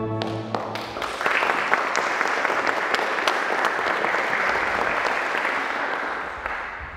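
Audience applauding, starting right as the music stops about a second in, then dying away near the end.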